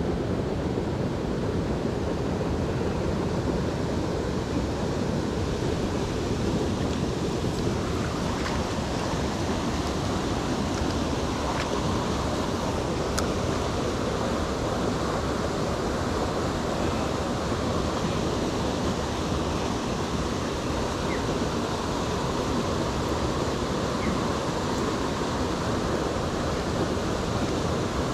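Creek water rushing steadily over rocks, with a few faint clicks.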